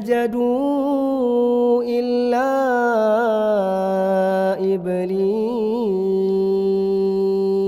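A man's solo voice chanting Quran recitation in melodic tajwid style, drawing out long notes with wavering, ornamented turns of pitch and ending on a long steady held note.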